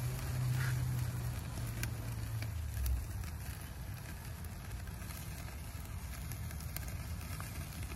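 Lobster tails sizzling on a charcoal grill grate, with faint crackling from the hot coals. A low hum sits under it for the first three seconds, then fades.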